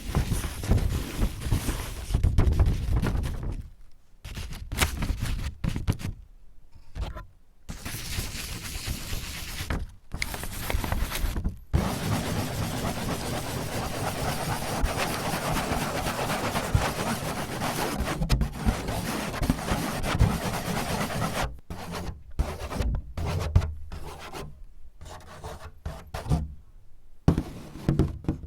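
Fingers scratching and rubbing on a surface in stop-start strokes broken by short silent gaps. Near the middle there is a longer stretch of continuous rubbing, and then the stop-start strokes return.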